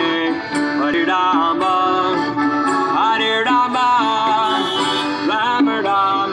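Devotional kirtan-style music: a harmonium holds sustained chords under a gliding sung melody.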